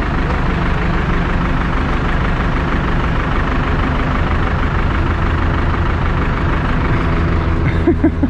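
Mobile crane's diesel engine running steadily at an even low pitch while a narrowboat hangs in its slings.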